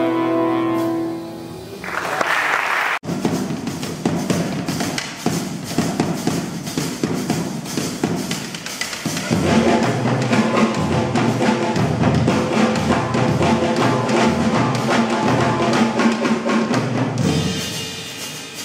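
Live big band jazz. A held chord ends, and after a sharp break the drum kit plays a busy groove with cymbals. About nine seconds in, the horns come back in over the drums.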